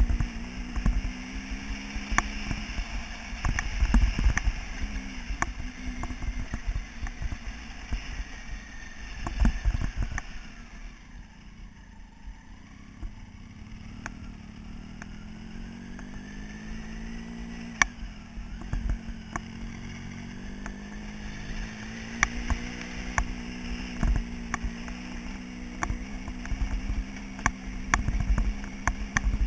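Motorcycle engine running under the rider on a rough gravel track, its pitch rising and falling with the throttle and easing off about eleven seconds in before picking up again. Sharp clicks and knocks from the bumpy gravel surface come throughout.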